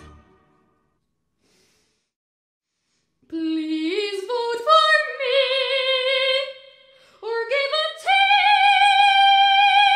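Boy soprano singing unaccompanied: about three seconds of silence, then a rising phrase with vibrato, a short break, and a second phrase that climbs to a long, high held note.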